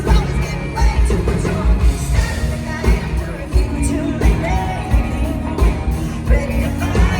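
Live country-pop band playing with a woman singing lead over a steady drum beat.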